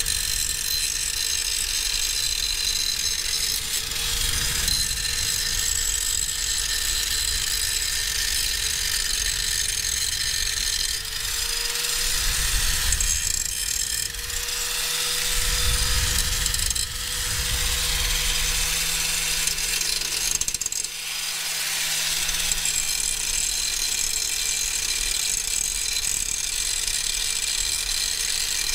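Angle grinder running under load, grinding steel off the ears of a rear brake caliper bracket, with a steady motor whine and the hiss of the disc on metal. The pitch and level dip briefly a few times as the disc is pressed in and eased off.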